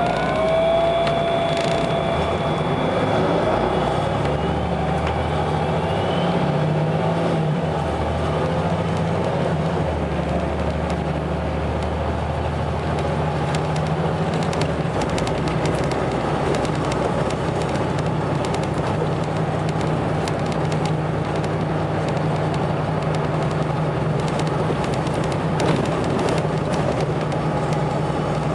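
Volvo B7RLE bus's 7-litre six-cylinder diesel engine and ZF automatic gearbox, heard on board. A whine rises and holds near the start, then fades while the engine note shifts, and the engine then settles into a steady low hum.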